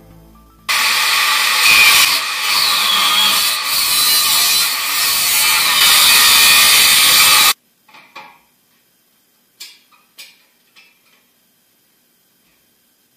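Angle grinder in a cut-off stand slicing through square steel tube with an abrasive disc: loud grinding of the disc through the metal, starting about a second in and stopping abruptly after about seven seconds. Then a few faint knocks as the cut tube is handled.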